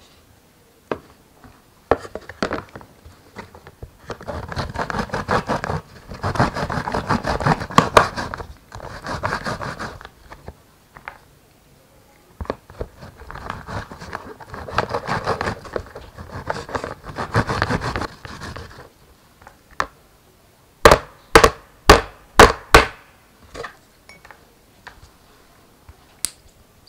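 Tomato halves rubbed back and forth on a perforated plastic grater, a rapid rasping scrape in two long spells. Near the end, a quick run of about five sharp knocks on plastic.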